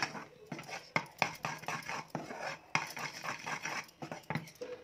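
Steel spoon stirring thick, frothy cooked jaggery in a metal kadhai, scraping and knocking against the pan in quick, irregular strokes, about three a second, as baking powder is mixed in.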